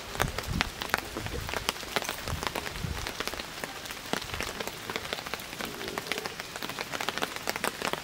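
Wood fire crackling in a small metal fire pit: a dense, irregular patter of small pops that sounds like rain, with a few low thumps in the first three seconds.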